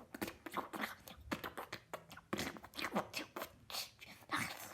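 A person making a rapid, irregular string of short mouth noises: clicks, pops and falling swoops, several a second.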